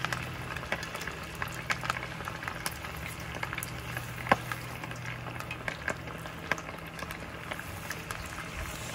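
Pieces of floured Japanese fried chicken (karaage) deep-frying in hot oil: a steady bubbling sizzle with many scattered crackles and pops, over a steady low hum.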